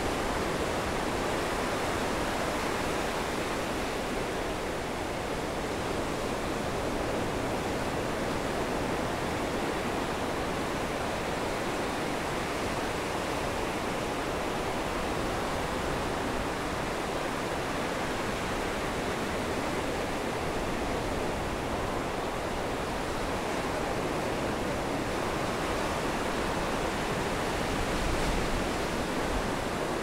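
Rough ocean surf breaking on the beach and against the wooden pier's pilings: a continuous wash of crashing waves, with a deeper surge near the end.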